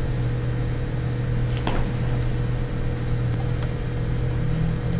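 Steady low electrical hum, with one faint click about a second and a half in.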